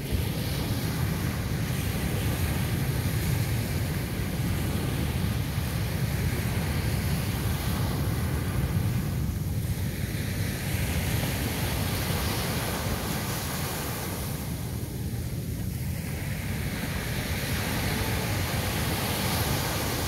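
Small sea waves breaking and washing up a sandy beach: a steady surf hiss that eases and swells again as each wave comes in. Wind rumbles on the microphone underneath.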